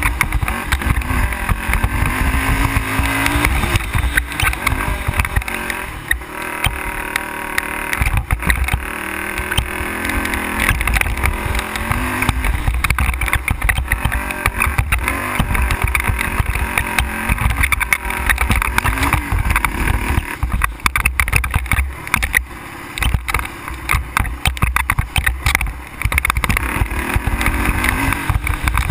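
ATV engine running under way on a dirt trail, its pitch rising and falling again and again as the throttle is opened and eased. A constant low rumble and dense rattling over the rough ground run underneath.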